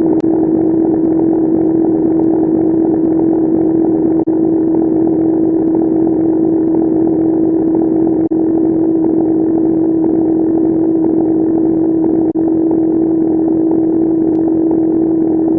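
A phone ringtone sped up to an absurd speed, so its melody blurs into one continuous harsh buzzing drone on a single steady pitch. It is cut by a short dropout about every four seconds.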